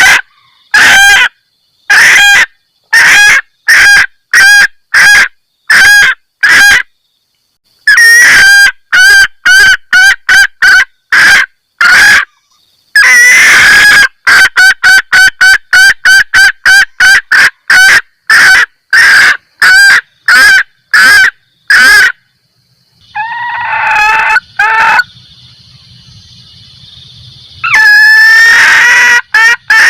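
Female junglefowl giving its 'kekkek' cackle, a lure call that draws males. Loud short notes repeat about two to three a second in runs broken by brief pauses, with a few longer, harsher calls between.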